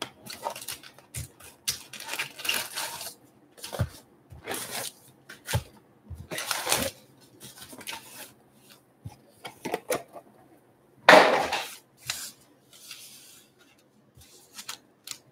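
Wrapped baseball card packs rustling and knocking as they are taken out of a cardboard box and stacked on a wooden table, in a series of short crinkly bursts with light taps. The loudest rustle comes about eleven seconds in.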